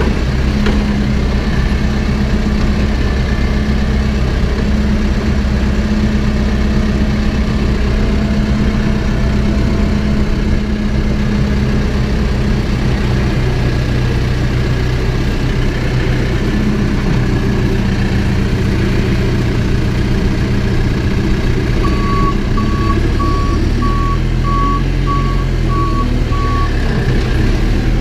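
Backhoe diesel engine running steadily. Near the end its backup alarm sounds a series of about eight evenly spaced beeps as the machine reverses.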